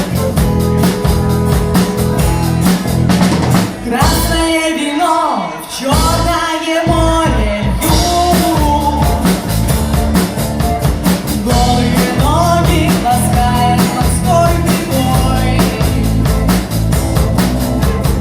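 A rock band playing live, with a drum kit keeping a steady beat under bass and guitar, and a voice singing in phrases from about four seconds in.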